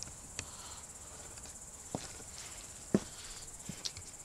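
Crickets chirping in a steady high trill, with four short sharp clicks spread through it.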